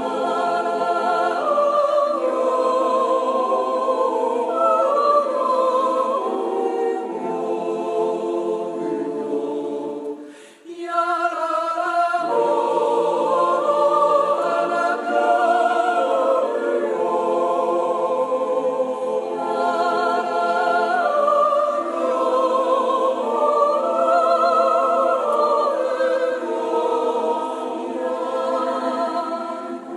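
Swiss yodel choir singing a Jodellied a cappella, with a brief break about ten seconds in before the singing picks up again.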